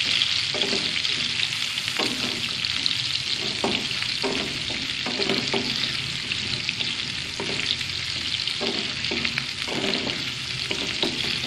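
Green chillies and ginger frying in hot desi ghee and butter for a tadka: a steady sizzling hiss full of fine crackles, with a few short knocks now and then.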